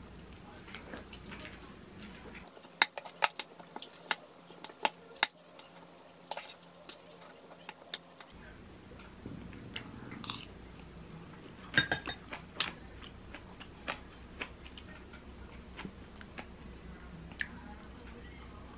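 Metal spoon clinking and scraping against a ceramic bowl while rice is mixed, with a run of sharp clinks about three to five seconds in. Then lighter taps of metal chopsticks on the bowl and soft chewing.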